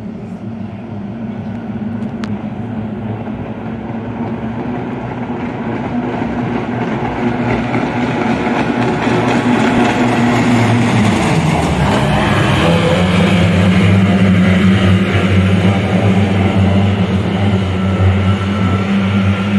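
Two-stroke outboard engines of a pack of kyotei racing hydroplanes running flat out, the drone growing louder as the boats approach. Just past halfway the pitch dips briefly as they swing around the turn mark, then they settle into a louder, steady drone.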